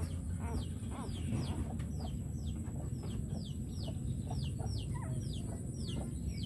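A steady run of short, high-pitched peeps, each falling in pitch, two or three a second, over a constant low rumble.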